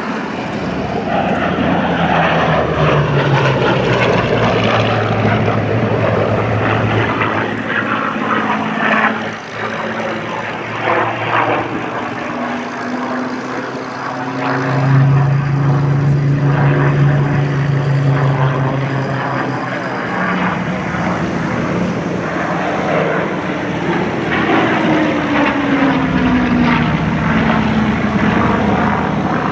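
Hawker Hurricane Mk IIa's Rolls-Royce Merlin V12 engine running hard through a flying display, its pitch rising and falling as the fighter banks and passes, with a falling sweep as it goes by about three-quarters of the way through.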